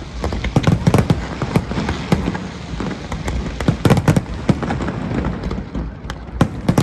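New Year fireworks display: a rapid, irregular run of bangs and crackling shell bursts, several a second, over a steady rumble of further explosions.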